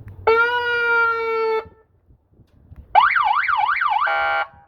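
Aftermarket multi-tone electronic car horn and siren sounding. It gives one steady horn blast of about a second and a half, then after a pause a fast rising-and-falling siren yelp that switches near the end to a steady tone that cuts on and off. It is super loud.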